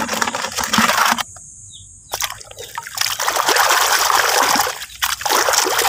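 Water splashing and trickling as a muddy toy mask is washed, in three spells with short pauses between them.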